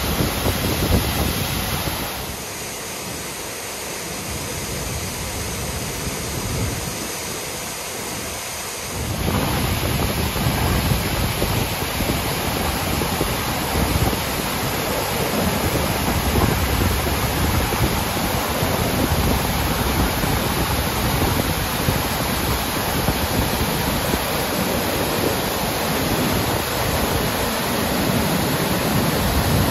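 Waterfall pouring over basalt ledges into a plunge pool: a steady, loud rush of falling water. It goes quieter and duller for several seconds soon after the start, then returns to full strength.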